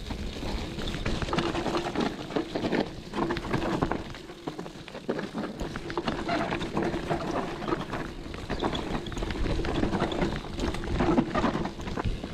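Hardtail mountain bike riding down a muddy trail: steady tyre and wind noise, with frequent clatters from the bike over bumps and roots.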